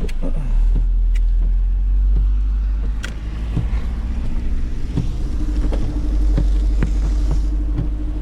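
A road vehicle running with a steady low rumble, with scattered light ticks and a faint steady hum that joins about five seconds in.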